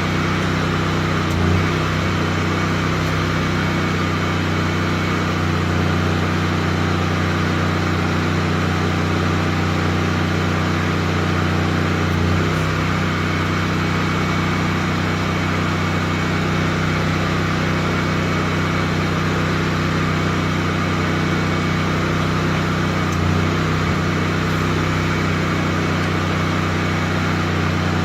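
An engine running steadily at constant speed, its note lifting briefly about three times, roughly eleven seconds apart.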